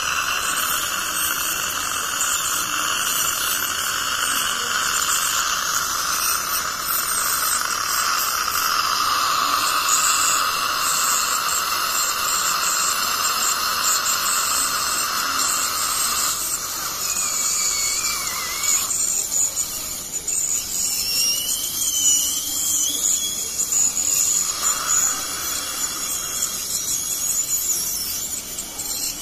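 Ultrasonic dental scaler running with its water spray, a steady high-pitched hiss and whine as the tip scales heavy tartar off the lower front teeth. The tone changes about halfway through, and a wavering squeal comes and goes.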